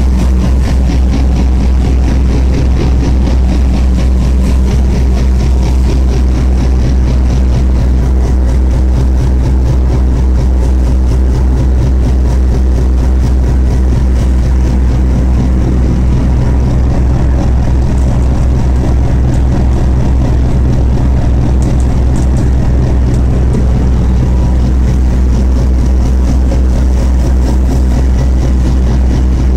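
Yanmar 3HM three-cylinder inboard marine diesel running steadily under way at about 10–11 knots, a loud, unchanging low drone heard from inside the boat's wheelhouse.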